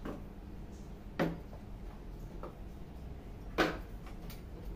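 Two sharp knocks, about a second in and again some two seconds later, with a faint click between: tableware and food containers being handled and set down on a table.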